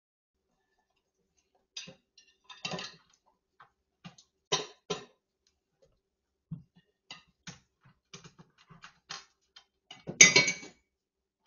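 German Shepherd licking and nosing in a stainless steel kitchen sink: an irregular run of short wet licks and clicks, with a louder, longer burst about ten seconds in.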